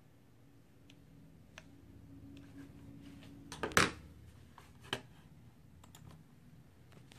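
Handling noise: scattered light clicks, then a loud knock about four seconds in and a smaller one about a second later, over a faint low hum.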